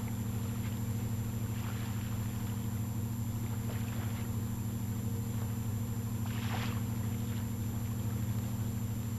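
Fishing trawler's engine running with a steady low drone, with a few faint brief noises on top.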